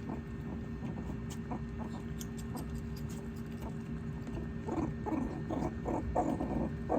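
Meerkats eating carrot: a stream of small clicks and crunches of chewing, with a few short calls about five seconds in.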